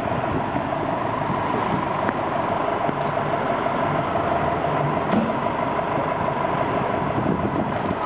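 Seagrave fire engine's diesel engine idling steadily in the firehouse bay, with a constant hum.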